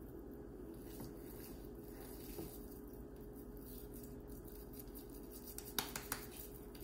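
Hands shaping raw minced beef into a patty, with quiet handling sounds and a few sharp pats near the end, over a steady low hum.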